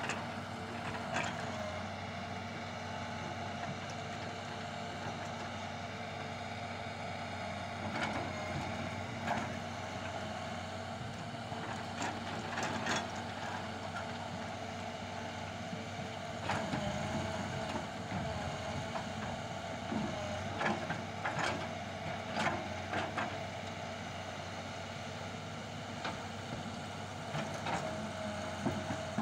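Heavy diesel engines of a Hitachi tracked excavator and a dump truck running steadily, with a constant hum and about a dozen short sharp knocks scattered through.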